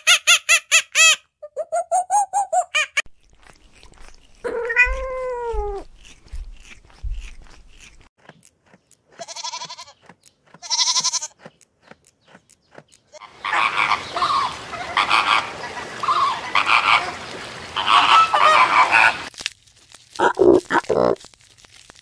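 A series of different animal calls: rapid pulsed calls at the start, a drawn-out call that rises and falls about five seconds in, two short high calls, then a longer stretch of rougher, noisier calls in the second half.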